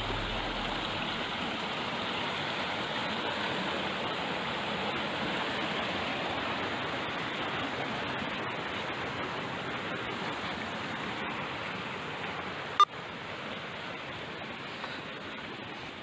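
Mountain river rushing and splashing over boulders in small cascades, a steady rush of water. A single sharp knock comes near the end, and the rush is a little quieter after it.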